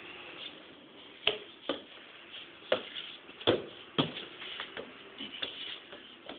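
Sharp thumps and knocks from ball play on paving: a football being struck and a keeper landing on the ground. There are about five loud ones in the first four seconds, then quieter knocks.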